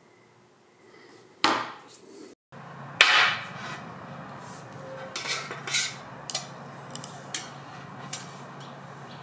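A wenge hardwood block handled on a workbench: a loud wooden knock about three seconds in as it is set down, then a run of lighter knocks and taps. A sharp knock comes earlier, about a second and a half in.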